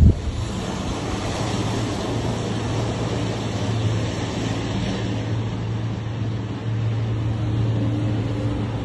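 Steady engine drone of passing heavy military vehicles: a low hum over a wash of engine and road noise, getting a little louder about two-thirds of the way through.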